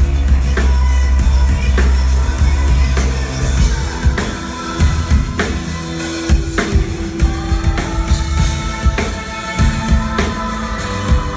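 Live band music through a club PA system: drum kit, bass and guitar. A heavy sustained bass gives way about four seconds in to sparser, punchier kick drum hits under held instrument tones.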